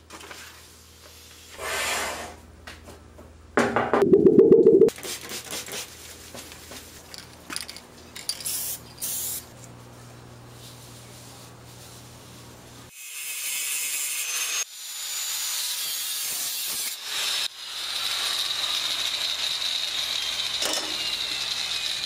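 Paper template handled and rubbed against a steel plate, with a loud rattle about four seconds in and scattered knocks, then a long steady hiss with a high whine from a tool cutting the steel sheet along the template.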